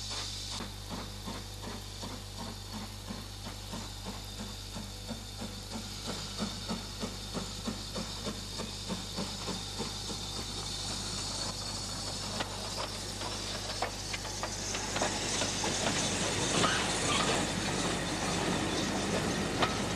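Steam locomotive (GNSR class F 4-4-0 No. 49 Gordon Highlander) working a train, its exhaust beating about twice a second over a steady hiss of steam. It grows louder in the second half, with rail clatter near the end as it draws close.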